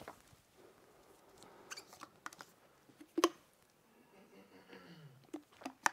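A few scattered light clicks and taps from a laptop keyboard, the loudest a single sharp click about three seconds in, over quiet room tone.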